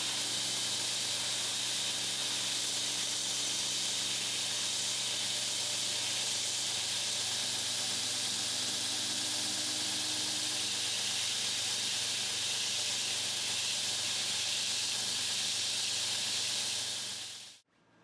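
Belt grinder running steadily: a constant hiss from the belt with a low motor hum underneath. It stops abruptly near the end.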